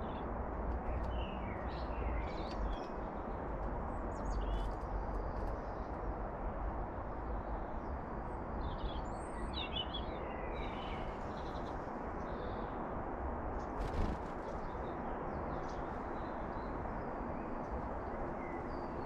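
Faint, scattered songbird chirps and calls over a steady background rumble and hiss, with a short burst of quick chirps about halfway through and a single sharp click about two-thirds of the way in.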